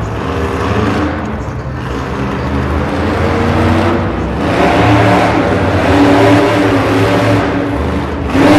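Monster truck's supercharged V8 engine revving up and down as the truck drives and turns on the dirt, loudest in the middle.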